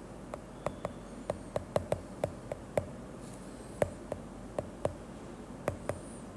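Stylus tip tapping and ticking on a tablet's glass screen while handwriting, light irregular clicks at each new pen stroke, over a steady faint background hiss.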